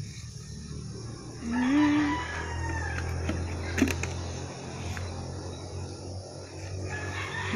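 A rooster crowing: one long crow starting about a second and a half in, with a second crow beginning near the end. A sharp click sounds in between.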